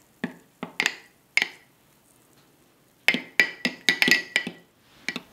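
Metal spoon clinking against the inside of a glass mug while stirring coffee. There are a few separate clinks, then a quick flurry of clinks about three seconds in, and one more near the end.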